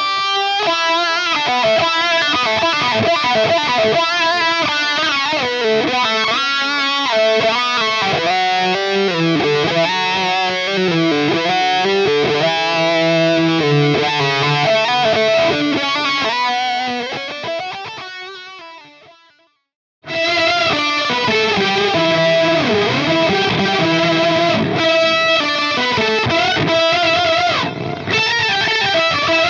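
Overdriven lead electric guitar through a Laney LC15R all-tube amp, with the distortion coming from the amp, boosted by a Tube Screamer-style TSE808 and shaped with Mesa Boogie cabinet impulses. The first phrase is played with wah and delay and fades out about nineteen seconds in. After a brief gap, a new lead phrase starts with an octaver and delay.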